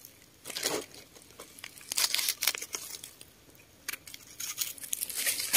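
Crinkly rustling and handling noise in several short bursts, with a few light clicks in between.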